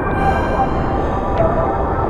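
River rapids rushing and splashing right around a camera at water level, over background music with held tones that come in at the start.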